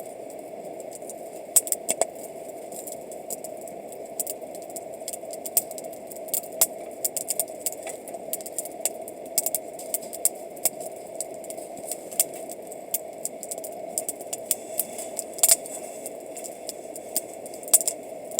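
Wood campfire crackling, with irregular sharp pops and snaps several times a second over a steady low rushing noise.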